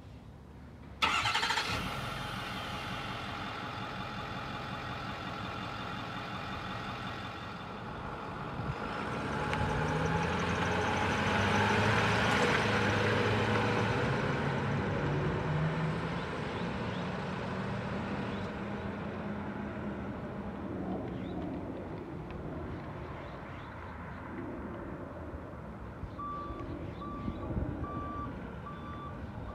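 A Ford F450's 6.4-litre Power Stroke V8 diesel starts about a second in and idles, then the truck drives off, the engine rising in pitch as it accelerates and fading as it moves away. A reversing beeper starts beeping near the end.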